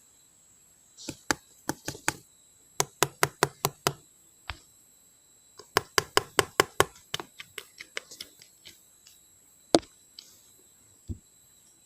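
Slime being handled, giving sharp pops and clicks in quick runs of several a second, then fewer and more scattered, with one loud pop near the end.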